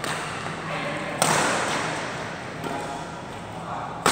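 Badminton racket strings hitting a shuttlecock in a rally, sharp smacks that ring out in a large echoing hall: the loudest about a second in, a lighter one midway, and another at the end.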